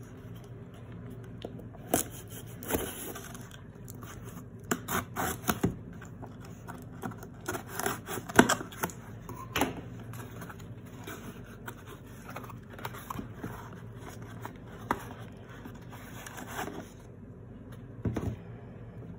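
Taped cardboard shipping box being torn and pulled open by hand: irregular scrapes, rips and crackles of cardboard and packing tape. A few knocks come just after 18 s as a small box is handled on a wooden table.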